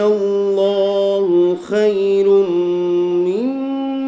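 A man's solo voice chanting Quran recitation in long, melodic held notes, with a short break for breath about a second and a half in and the pitch stepping up near the end.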